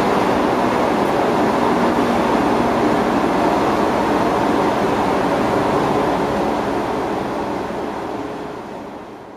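Large three-phase induction motor running on a test, a loud steady rush of noise with a faint hum in it. The sound fades out near the end.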